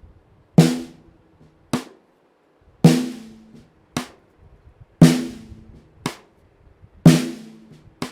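Snare drum played with a stick, alternating a full snare stroke with a cross-stick (rim click), about one stroke a second. The snare strokes are louder and ring on. The cross-stick strokes are short, dry, woodblock-like clicks. There are four of each.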